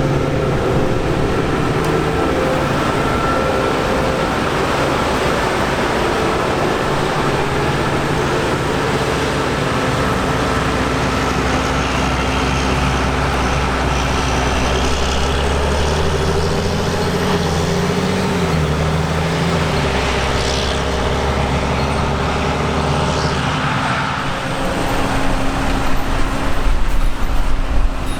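Diesel engines of harvest machinery (combine harvesters and tractors) running steadily. One engine tone wavers in pitch around the middle, and the sound turns rougher and more uneven near the end.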